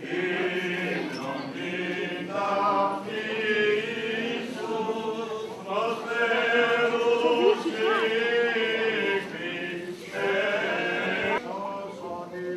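Greek Orthodox Byzantine chant sung by male voices, with long held notes and ornamented turns over a steady low held drone, in phrases broken by short pauses.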